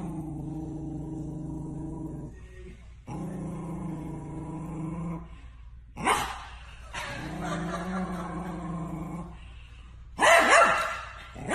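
A small terrier growling at its reflection in a mirror: three long, steady, low growls of about two seconds each, then a loud outburst of barking about ten seconds in.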